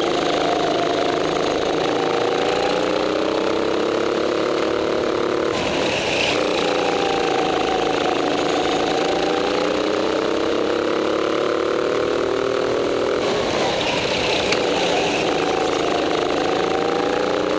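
Go-kart engine running under the driver during a race, its pitch dropping and climbing again about three times as the revs fall into the corners and build on the straights.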